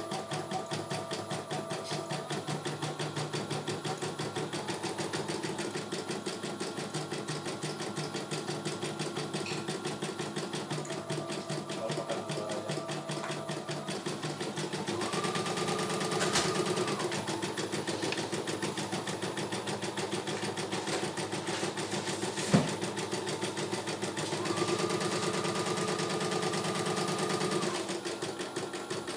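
CNY E900 computerized embroidery machine stitching a design, its needle running in a rapid, even rhythm over a whirring motor tone that changes pitch from stretch to stretch. It gets louder around the middle and again near the end, and a single sharp click comes about two-thirds of the way in.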